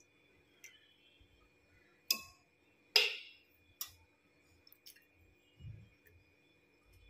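A metal utensil clinking against an aluminium pressure cooker: a few sharp clinks, the two loudest about two and three seconds in, with a soft thud near the end over a faint steady hum.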